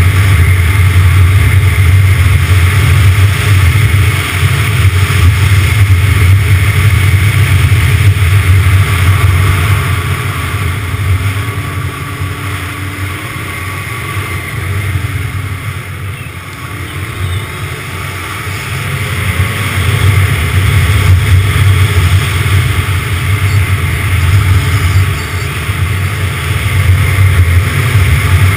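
Snowmobile running along a groomed trail at speed, its engine and track noise heavy and steady. About ten seconds in it eases off and runs quieter for several seconds, then picks back up around twenty seconds.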